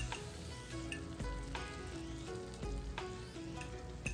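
Food sizzling as it fries in a pan, under background music with a simple stepping melody.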